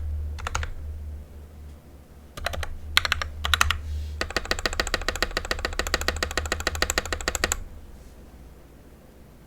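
Keystrokes on a GK64 mechanical keyboard with lubed Gateron Black linear switches and XDA-profile keycaps. A few short flurries of keystrokes come first, then about three seconds of fast, even keystrokes that stop abruptly a little past seven seconds in. A low, bassy table rumble sits under the first half.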